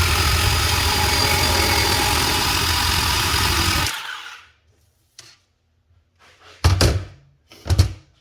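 DeWalt DCS370 18 V cordless bandsaw running through a cut in schedule 40 pipe, then switching off about four seconds in and winding down quickly. Two loud thunks follow close together near the end.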